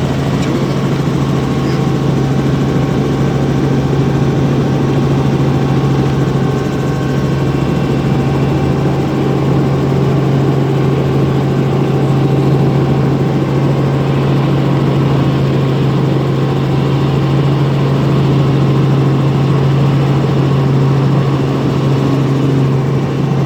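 Helicopter running steadily: a loud, constant drone with a strong low tone.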